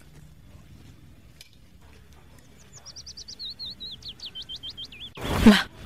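A small bird chirping a fast run of high, sweeping notes, starting about halfway through, over quiet outdoor background. Near the end comes a short, loud burst of noise.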